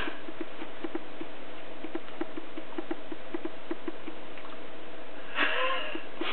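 A run of soft, short, low animal calls, like clucks or chatter, about three a second, over a faint steady hum. A brief louder call comes near the end.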